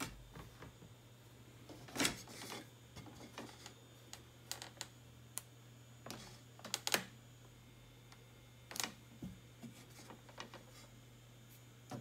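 Scattered plastic clicks and knocks from handling a Jura Impressa C5 coffee machine: the drip tray is handled, the front panel flap opened and its buttons pressed to start the cleaning program. A small cluster of clicks comes about two seconds in and a sharper pair about seven seconds in, over a faint steady low hum.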